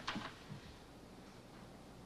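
Quiet pause with faint room tone. There is a brief soft noise right at the start and a fainter one about half a second in.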